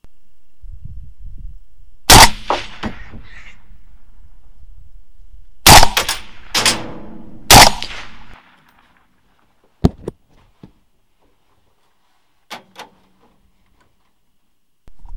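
Rifle shots: four loud, sharp cracks over about five and a half seconds, each with a short ringing tail, followed later by a few much fainter cracks.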